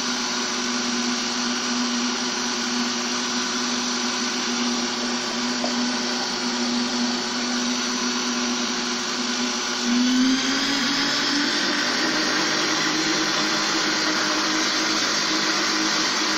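Electric countertop blender running steadily, churning a liquid cake mixture of eggs and milk. About ten seconds in, the motor's hum rises slightly in pitch and gets a little louder.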